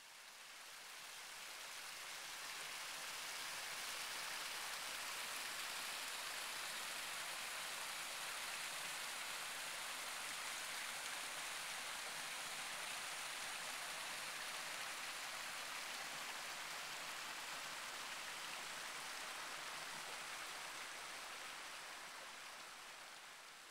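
Creek water flowing, a steady rushing hiss that fades in over the first few seconds and fades out near the end.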